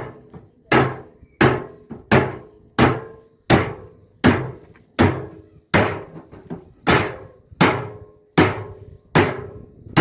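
Hammer striking a steel drum in an even rhythm, about three blows every two seconds, each with a short metallic ring. The drum's metal is being cut along a marked line to make a drum stove.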